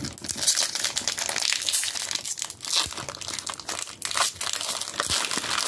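Foil wrapper of a Pokémon TCG booster pack crinkling as it is handled and opened: a continuous run of fine crackles.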